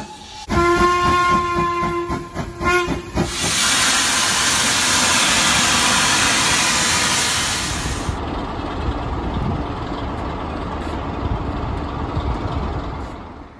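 A steam locomotive's whistle sounds in a few short blasts, then steam vents with a loud, steady hiss for about four seconds. A lower rumble of a diesel locomotive's engine takes over after about eight seconds.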